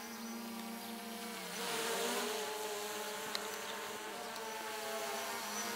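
DJI Phantom 3 quadcopter's propellers buzzing in flight overhead. The hum shifts in pitch and grows a little louder about a second and a half in.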